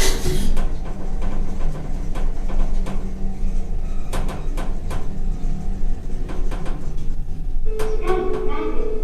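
Toshiba elevator running with a steady low hum, a sharp click at the start and a few lighter clicks in the middle. Near the end a steady, hooting tone with overtones begins and holds.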